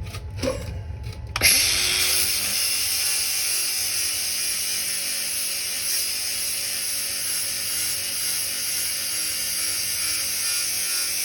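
Grinder biting into a drum mulcher tooth about a second and a half in, then grinding steadily on the tooth. Before that, a few light knocks over a low rumble.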